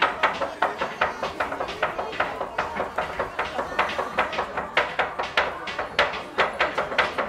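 Two cleavers chopping hard candy on a wooden board (tontoko-ame cutting), several sharp knocks a second without pause. The two cutters' strokes interlock like a polyrhythm.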